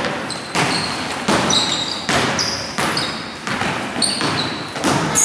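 A basketball bouncing on a hard court in irregular thumps, mixed with many short high squeaks typical of players' sneakers on the floor.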